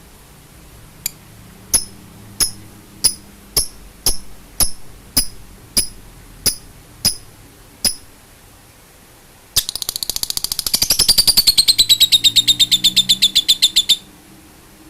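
A small songbird calling: a series of about a dozen sharp, high chip notes about two a second, then a loud, rapid, high trill lasting about four seconds.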